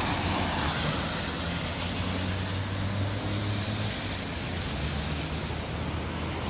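Steady road traffic noise: cars running and passing on a wet multi-lane road, with tyre hiss and a low engine hum.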